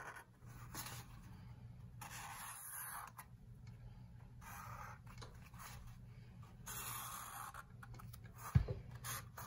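Marker drawing on a paper plate: several scratchy strokes, each lasting up to about a second, with a sharp thump about a second before the end.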